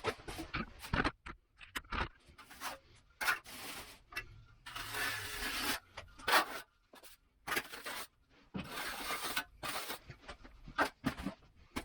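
Steel finishing trowels scraping and smoothing wet mortar on a shower curb, in irregular strokes: mostly short scrapes, with two longer drawn-out passes around the middle and later on.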